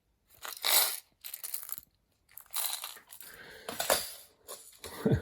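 Handling of watchmaker's crown assortment boxes: small metal crowns clinking and packaging rustling in several short bursts, with gaps between.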